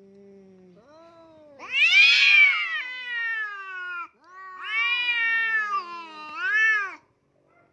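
Cats yowling at each other in a standoff: long, wavering wails that start low, rise into a loud howl about two seconds in and slowly sink. After a short break a second long wail ends in a rising-and-falling howl. This is the threatening caterwaul of cats squaring up to fight.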